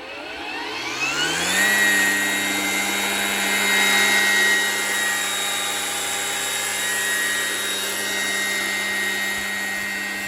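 Greenworks 82V commercial cordless string trimmer's electric motor spinning up, its whine rising for about a second and a half, then running steadily at full speed.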